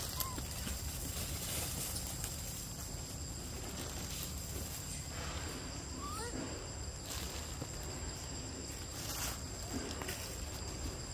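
Forest ambience: a steady high insect drone over a low rumble, with brief rustles in dry leaf litter every few seconds and a couple of faint short rising chirps about six seconds in.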